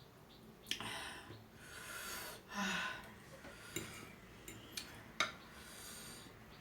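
Close-up eating sounds of a person eating spicy instant noodles: a few breaths and sniffs, with a handful of sharp clicks of a utensil against the bowl.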